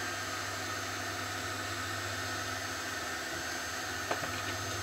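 Steady whirring hum of a 3D printer running, with a faint click about four seconds in.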